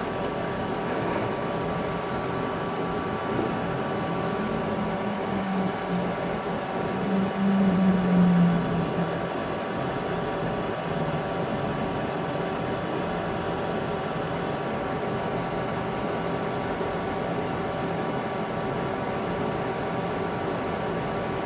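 Steady machine hum of a cooling fan or power supply, with a few constant tones over a noise haze. Between about four and nine seconds in, a louder low tone swells and dips slightly in pitch, then fades.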